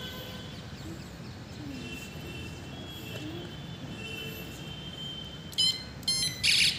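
Electronic handlebar horn on a children's bicycle, pressed three times near the end: short, loud, shrill electronic blasts in quick succession.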